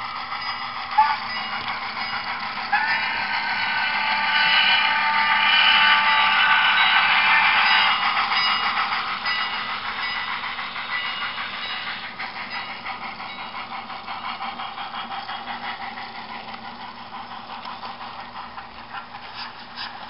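Model steam train running on a layout. About three seconds in, a steady high sound of several pitches at once starts suddenly, stays loudest for about five seconds and then fades, leaving the rolling of the train with regular clicking near the end.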